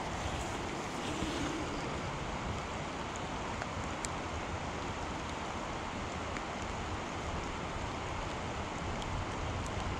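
Steady rush of a shallow creek's flowing water, with wind rumbling on the microphone and a few faint ticks.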